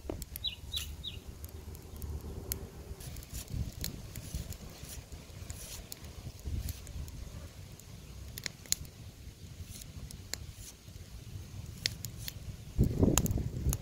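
A cleaver slicing thin rings off a small red onion held in the hand, with no board: short, crisp snaps at irregular intervals, and a louder burst of handling noise near the end.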